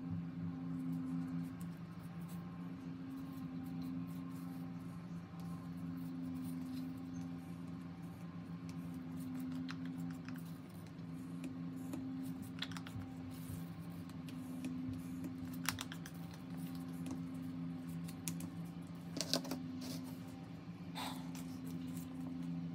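Wooden popsicle stick stirring two-part epoxy resin in a plastic cup, with scattered light clicks and taps of stick and plastic cups, over a steady low hum.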